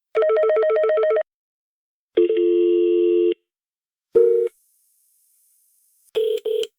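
Telephone signalling tones played one after another with silent gaps: a fast-pulsing ring tone for about a second, then a steady dial tone for about a second. After that come a short beep and, near the end, two quick beeps.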